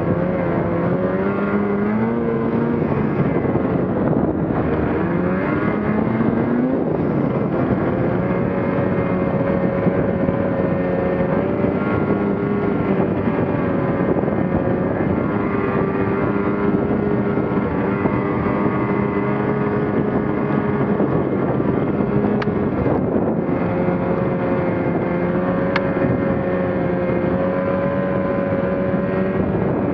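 Ski-Doo Gen 4 850's two-stroke twin engine running under way. The revs rise and fall over the first several seconds, then hold steady.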